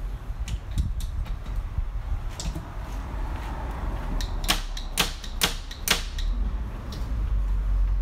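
Sharp clicks and taps over a low steady rumble. A few light ones come first, then four loud clicks in quick succession, about half a second apart, past the middle.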